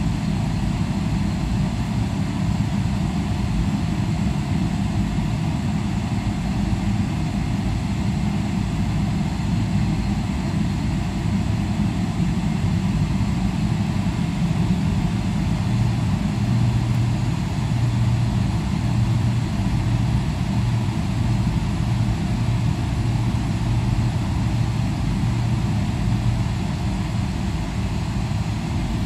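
Steady low rumble of a Boeing 777-300ER's GE90-115B engines at idle thrust while the jet taxis, with a low hum that grows stronger for about ten seconds past the middle.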